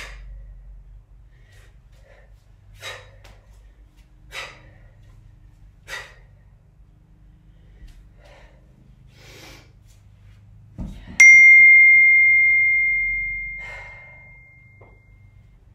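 Short, sharp exhales roughly every one to two seconds as kettlebell snatches are done, then a thud as the kettlebell is set down. Just after, a single loud bell-like ding rings out and fades over about three seconds.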